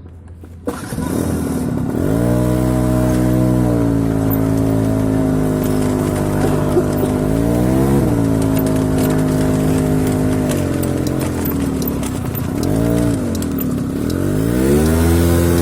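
A motor vehicle's engine running under way. Its pitch climbs and drops several times, as when accelerating and changing gear.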